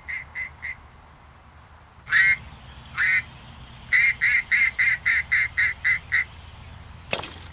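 Duck calls for a retriever mark: two quacks, then a run of about nine quacks at about four a second. Near the end comes a single sharp crack as the winger launcher fires.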